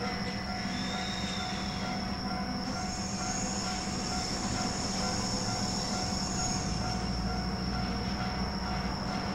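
Freight tank wagons rolling slowly through the yard during shunting, their wheels squealing on the rails: a short high squeal about a second in and a longer, higher one from about three to six and a half seconds, over a steady hum.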